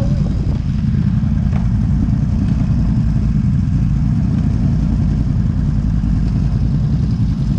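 ATV engine running steadily on a trail ride, a dense low drone that holds an even level throughout.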